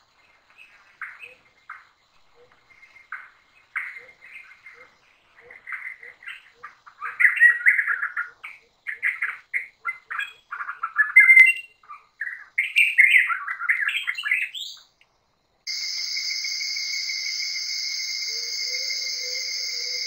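Rainforest birds chirping and calling, louder and busier in the middle, over a low cooing note repeated faster and faster. Near the end this gives way abruptly to a steady high-pitched drone of night insects with one constant whine.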